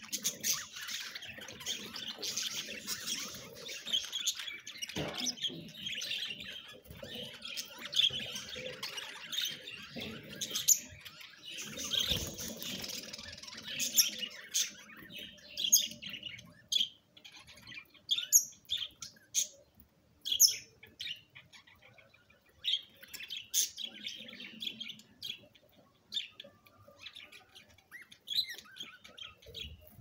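A flock of budgerigars chattering and chirping. Dense overlapping warbling chatter for about the first half thins to scattered sharp chirps in the second half.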